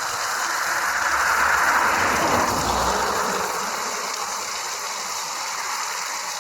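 Mountain waterfall running at full force after heavy rain, a steady rush of falling water. A vehicle passes, swelling to its loudest about a second and a half in and fading away by about four seconds.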